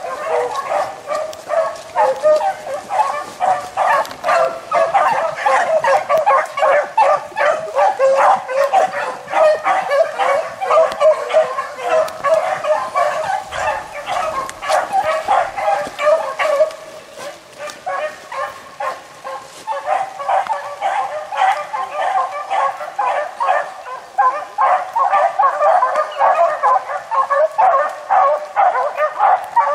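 A pack of beagles baying in full cry as they run a rabbit, many hound voices overlapping in rapid calls. The chorus thins briefly a little past the middle, then builds again.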